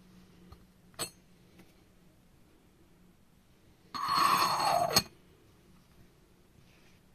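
Yixing clay teapot being handled. A light ceramic clink comes about a second in. About three seconds later comes a louder sound lasting about a second, with a falling tone and a high ringing, which ends in a sharp click.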